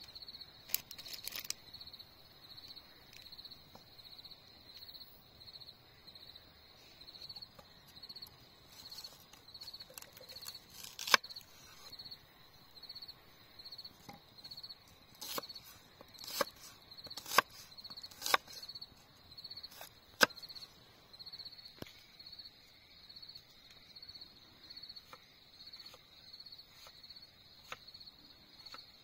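An insect chirping in a steady, even rhythm, about one and a half chirps a second. Over it come a handful of sharp knocks, about a second apart in the middle stretch.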